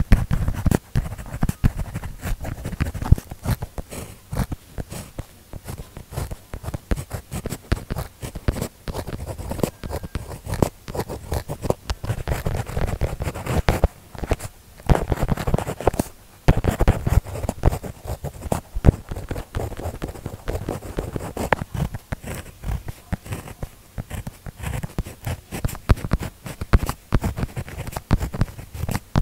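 Zebra pen writing on paper: the tip scratches and taps in quick, irregular strokes, broken by a couple of brief pauses about halfway through.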